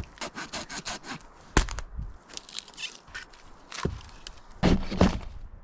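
Dry firewood being broken up: several sharp wooden cracks and knocks, the loudest near the middle and near the end, with quicker small snaps between.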